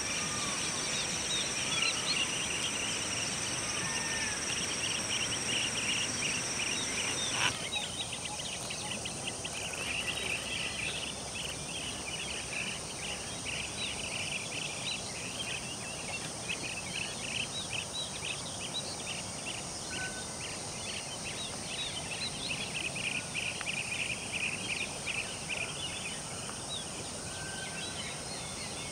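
Field ambience full of rapid, overlapping high bird chirps. For the first seven seconds or so two steady high tones and a few short rising-and-falling calls run under them. The sound changes abruptly after that, and the dense chirping carries on alone.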